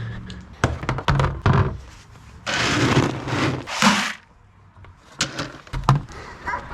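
Several knocks and thunks, then two short bursts of loud rushing noise near the middle, and a few more light knocks near the end.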